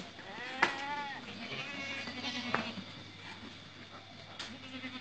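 Totapuri goats bleating: a wavering bleat about a second in, another around two seconds, and a third starting near the end, with a couple of sharp knocks between them.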